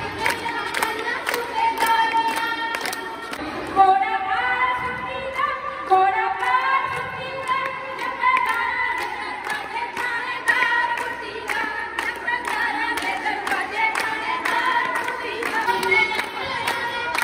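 A woman sings Punjabi boliyan (folk couplets) into a microphone through a PA speaker. Other women sing along and clap a steady rhythm for giddha dancing.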